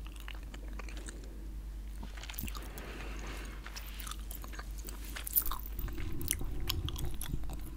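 Chewing gum right at the microphone: irregular wet smacks and small clicks of the mouth.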